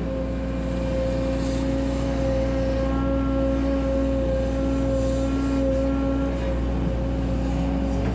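Volvo EC140DL hydraulic excavator working: the diesel engine runs steadily with a steady whine from the hydraulics as the arm and bucket dig.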